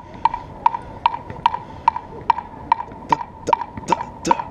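Metronome clicking at a steady fast tempo, about two and a half pitched clicks a second, setting the beat for a band rehearsal. From about three seconds in, louder sharp hits land with the last few clicks.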